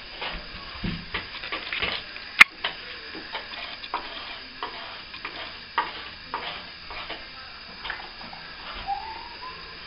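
Plastering hand tools at work: irregular short scrapes and taps of a blade against plaster, with one sharp click about two and a half seconds in.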